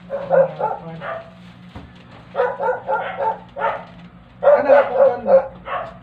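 A dog barking repeatedly in short runs of barks, with a run about two and a half seconds in and another near the end.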